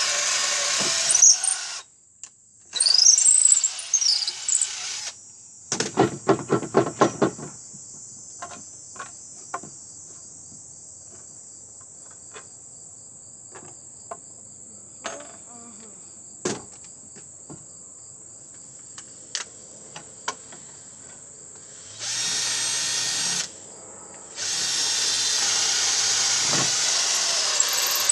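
Electric drill boring holes, run in four bursts of a few seconds each with a high-pitched whine. Between the first two bursts and the last two there is a quick run of clicks and scattered knocks.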